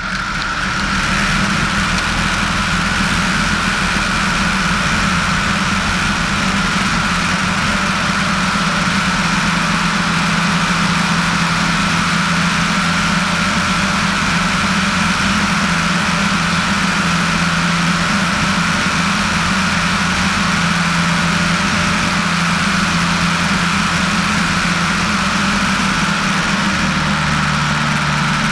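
Piper PA-18-150 floatplane's 150 hp Lycoming four-cylinder engine and propeller running steadily at takeoff power as the floats leave the water and the plane climbs away. The engine note dips slightly near the end.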